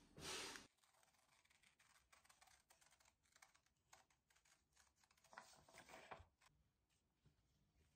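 Scissors snipping through a paper pattern: a run of faint, crisp clicks, busiest about five and a half to six seconds in.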